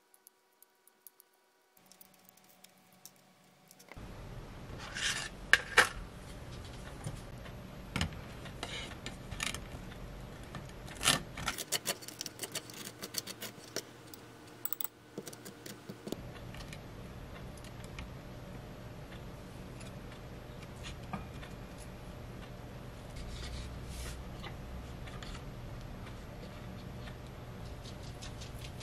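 Kitchen food-preparation handling sounds: sharp clicks and taps of utensils and a plate, and soft rubbing and scraping, over a low steady hum. The first few seconds are nearly quiet.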